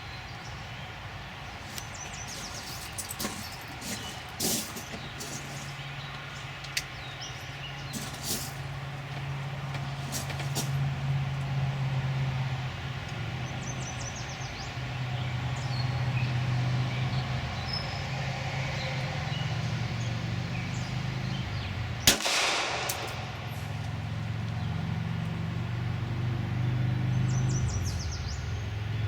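Glock 26 9mm pistol firing slowly: a few fainter sharp cracks in the first several seconds, then one much louder shot with a ringing tail about 22 seconds in, over a low steady rumble.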